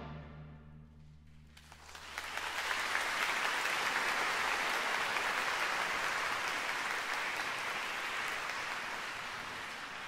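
The wind orchestra's final chord dies away in the hall's reverberation, a low note lingering briefly, then the audience breaks into steady applause about a second and a half in, easing off slightly near the end.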